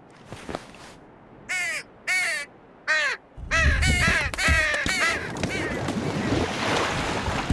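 Crow cawing: a string of short, harsh caws, at first spaced out, then in a quick run. Partway through, a loud, low rushing of storm wind starts up and carries on.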